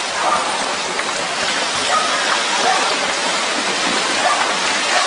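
Steady rushing, hissing water noise, like heavy rain or fast runoff, with no rise or fall.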